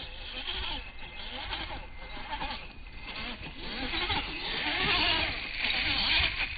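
Electric RC sand buggy on a 3S LiPo tearing through loose sand: its motor whine rises and falls with the throttle, over a hiss of sand spraying from the tyres. It gets louder about four seconds in as the buggy comes close.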